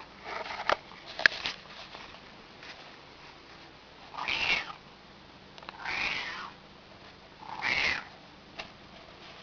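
Domestic cat making short, odd calls that aren't quite meows: three of them, each about half a second long and roughly a second and a half apart. These are the sounds she makes when she wants a door opened. Two sharp clicks come about a second in.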